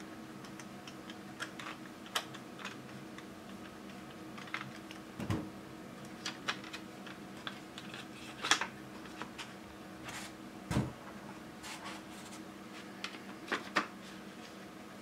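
Plastic parts of a 12A-type laser toner cartridge clicking and knocking as they are handled and taken apart: scattered sharp clicks, with duller thumps about five and eleven seconds in. A steady low hum runs underneath.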